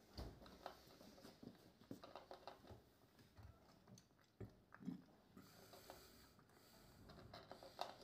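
Flame point Siamese cat eating from a plastic bowl: faint, irregular chewing clicks, with one louder knock about five seconds in.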